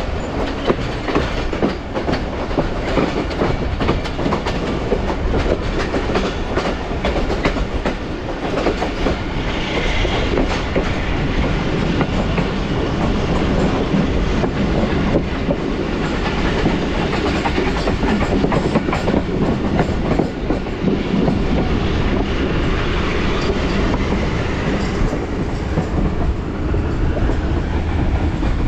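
Passenger train coach running at speed: a steady rumble of wheels on the track, with a constant clatter of wheel clicks over the rail joints.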